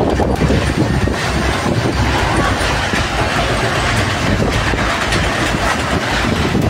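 Storm wind gusting against the microphone: a loud, steady rush with a heavy, buffeting low rumble.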